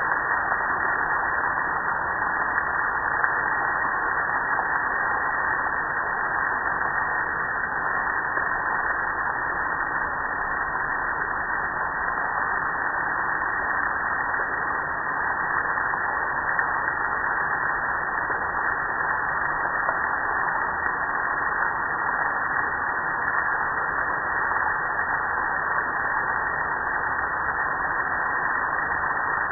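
Garden hose spray nozzle spraying water steadily onto a metal gas grill: an even, unbroken rush of spray that doesn't change.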